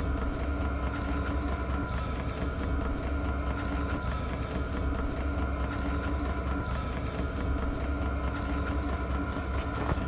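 Diesel air heater running on its lowest setting: a steady mechanical drone with a faint high chirp repeating about once a second.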